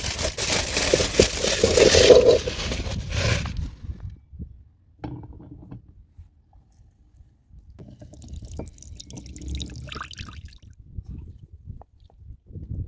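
Aluminium foil crinkling loudly for about the first three and a half seconds as it is handled around a roasting pan. After a short lull come quieter liquid sounds: orange juice trickling from a lever juice press, then broth being scooped with a bowl.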